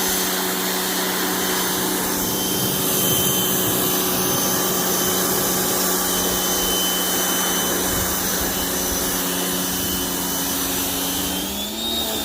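Electric pressure washer running with its motor humming steadily under the hiss of the water spray, its pitch rising slightly near the end. It is spraying weaker than it should.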